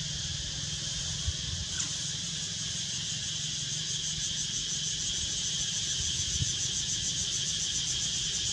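Insect chorus buzzing steadily in a high, continuous drone that takes on a fast, even pulsing about halfway through, over a low rumble.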